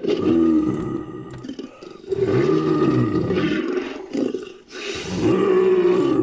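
Designed creature roars, mixed from big-cat and other animal roars with a human voice: three long, growling calls, each rising and then falling in pitch.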